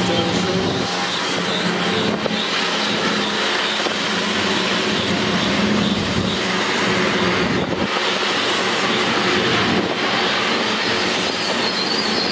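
Freight train of tank cars rolling past close by: a steady noise of steel wheels on the rails, with a few sharper clanks.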